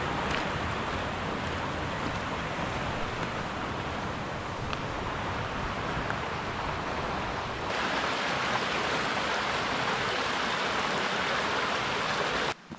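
Mountain stream rushing over rocks: a steady wash of water noise that steps up louder about two-thirds of the way through and cuts off abruptly near the end.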